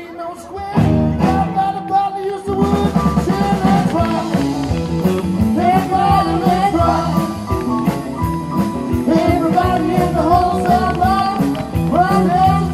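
Rock music with singing, a drum kit and guitar.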